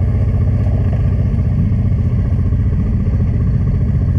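Honda Transalp 600's V-twin engine running steadily as the motorcycle rides along a dirt track, heard on board.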